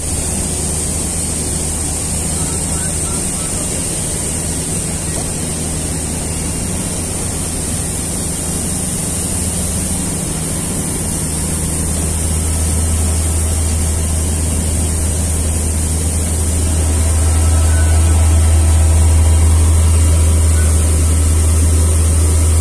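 Steady low machinery hum with a high hiss above it, growing louder over the second half.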